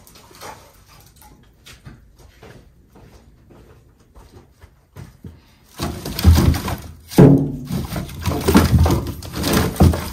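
Split oak firewood being tossed into the steel bed of a Suzuki Carry mini truck. Faint knocks at first, then, about six seconds in, a run of loud thumps and clatters as the pieces land.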